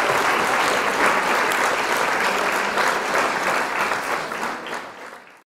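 Audience applauding, many hands clapping together, fading away and then cutting off abruptly near the end.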